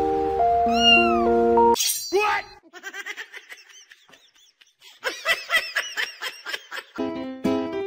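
Background music with sustained keyboard-like notes that cuts off suddenly about two seconds in. It is followed by a run of short, high-pitched calls, each rising and falling in pitch, coming in quick bursts. Plucked, ukulele-like music starts near the end.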